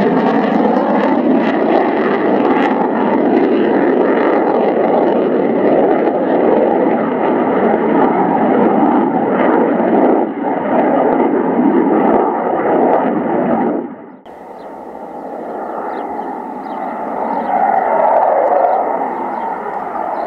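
Loud jet noise from a Belgian Air Force F-16's single engine as it flies a display. The roar drops off abruptly about two-thirds of the way in, then builds again near the end.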